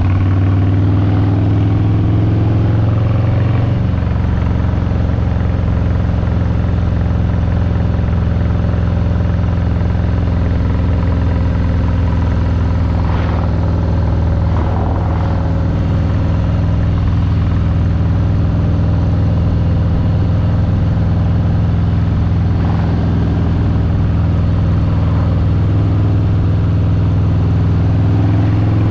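Harley-Davidson Street Bob 114's Milwaukee-Eight 114 V-twin running steadily on a ride, the exhaust loud and constant. The engine note shifts about four seconds in.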